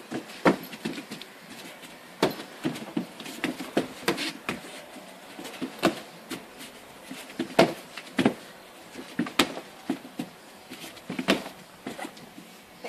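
Kicks and punches landing on a handheld Tapout strike shield, giving sharp slapping thuds in uneven runs, a dozen or more across the stretch.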